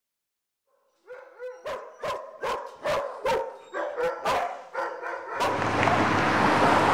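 Border collie mix barking sharply and repeatedly, about ten barks at two or three a second after a short yip: cage-frustration barking from a dog shut in a shelter kennel. Near the end the barking gives way to a steady din.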